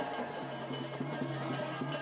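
Music: a held low drone note under quick drum strokes.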